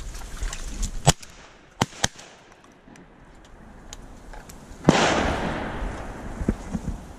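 A few sharp clicks, then about five seconds in a single shotgun shot rolls away in a long echo over a couple of seconds.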